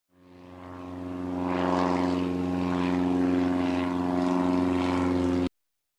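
Propeller airplane engine running steadily, fading in over about two seconds, then cutting off abruptly near the end.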